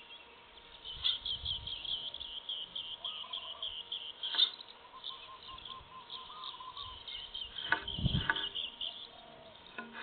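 Forest ambience: rapid high-pitched chirping runs through most of it, with a few sharp clicks and a low thump about eight seconds in.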